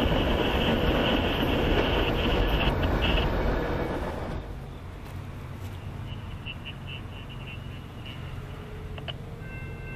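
Freight train rolling on the rails, with a rumble and a steady high wheel squeal, fading away about four seconds in. Near the end a locomotive horn chord begins to sound.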